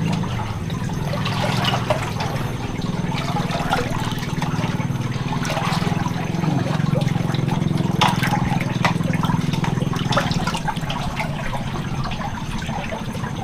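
Water splashing and trickling over a steady low rush of flowing water, as someone wades through a shallow stream inside a cave.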